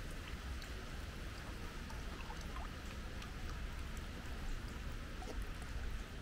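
Water splashing steadily, with many small scattered drips and splashes.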